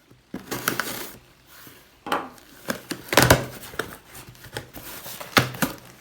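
Handling noises: objects being moved and knocked about, with several sharp knocks and rubbing in between.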